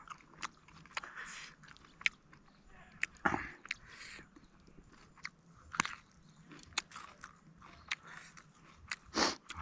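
A person chewing and biting food close to the microphone: frequent short wet mouth clicks, with a few louder crunches about three, six and nine seconds in.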